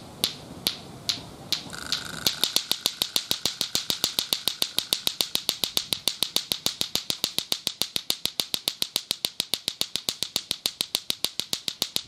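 Lato-lato clackers: two plastic balls on a string knocking together. A few slow, spaced clacks at first, then about two seconds in they settle into a fast, steady clacking rhythm.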